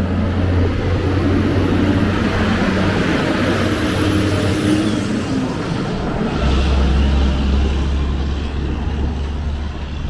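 Street traffic: passing motor vehicles with a loud, steady low engine hum and tyre and air rush. The hum shifts to a lower pitch about six seconds in as one vehicle gives way to another.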